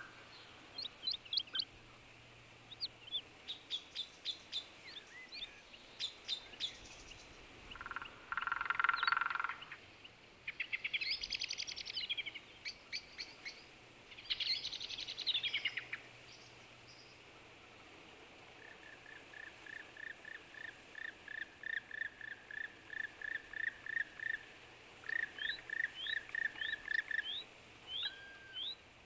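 Several songbirds singing and calling: quick high chirps and warbled trills, a short buzzy rattle about eight seconds in, and a long run of rapid, evenly repeated notes in the second half.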